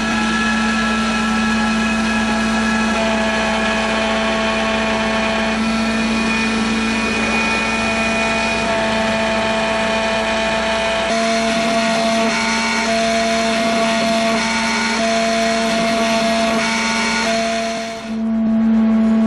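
Bravoprodigy BE2015 desktop CNC engraver cutting a rubber stamp sheet. The spindle motor runs with a steady hum, and higher whining tones change pitch every second or two as the machine moves along its cutting path. The sound dips briefly near the end.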